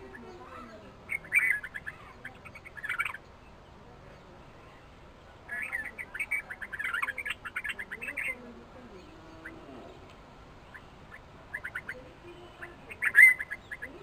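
Red-vented bulbuls giving quick chattering calls in three bursts, the loudest near the end.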